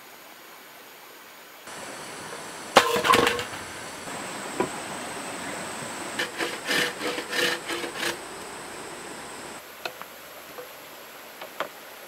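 Hollow green bamboo tubes knocking and clattering against each other and a wooden sawhorse as they are set down and handled. The loudest clatter comes about three seconds in, a run of lighter, slightly ringing knocks follows a few seconds later, and a few faint clicks come near the end.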